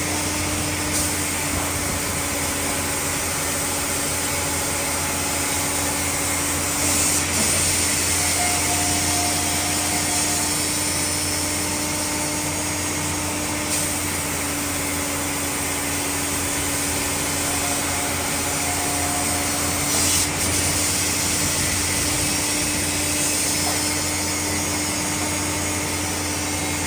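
Sawmill machinery running steadily: a continuous mechanical noise with a constant low hum, broken by a couple of brief knocks.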